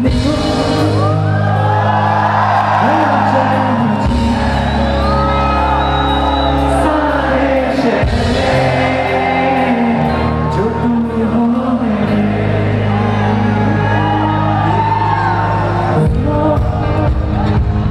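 Loud music with a heavy bass line that changes every few seconds, with a crowd whooping and singing along in a large hall.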